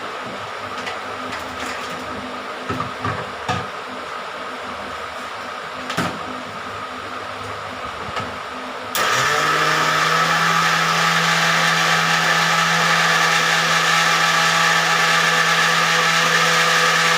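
An electric kitchen mixer switches on about nine seconds in and runs steadily at one speed, beating cake batter of eggs, sugar and flour. Before it starts there is only a low steady hum with a few light clicks and knocks.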